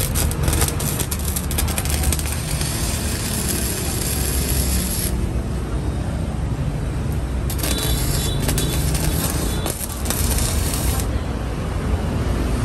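Boss Weld 185 MIG welder arc crackling and sizzling as a bead is laid on steel plate, stopping about five seconds in and starting again for about three and a half seconds from around seven and a half seconds. A small engine runs steadily underneath.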